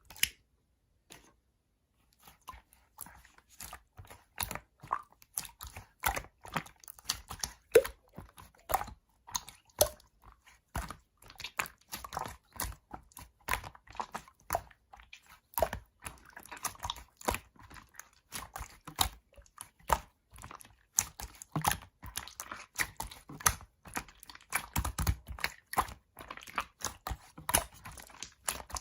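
Slime being squeezed and kneaded by hand: a continuous, irregular run of quick sticky clicks and pops, starting about two seconds in after a single early click.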